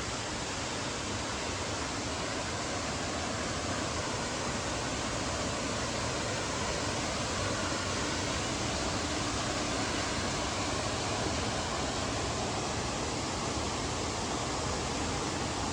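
Steady rush of falling and flowing water in a tropical mountain stream, an even, unbroken roar.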